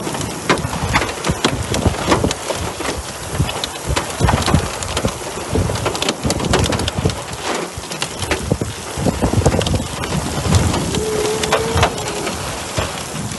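Heavy rain mixed with hail pelting an asphalt road: a loud, dense hiss peppered with sharp ticks of hailstones striking.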